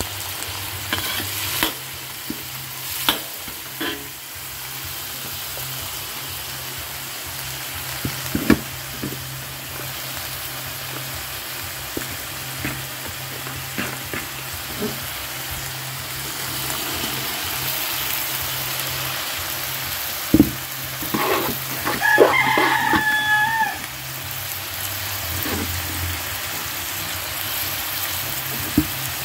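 Vegetables stir-frying in a wok: steady sizzling, with the metal spatula scraping and clicking against the pan over a low steady hum. About two-thirds through, a short high-pitched call lasts a second or so.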